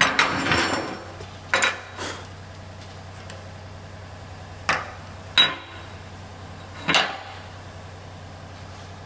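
Steel workpieces clanking on a steel welding table as they are handled and set down: a short rattle at first, then five separate knocks spread over several seconds, over a steady low hum.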